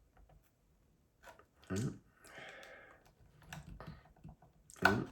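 Screwdriver and small prying tools clicking, tapping and scraping against a hard drive while a stuck part is worked at, refusing to come off. Scattered sharp clicks with a short scrape in the middle, the loudest click near the end.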